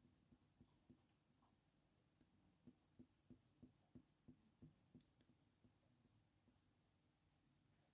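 Faint scratching of a Faber-Castell Polychromos colour pencil (dark indigo) on hot-press watercolour paper, making short strokes. The strokes come in a run of about three a second through the middle.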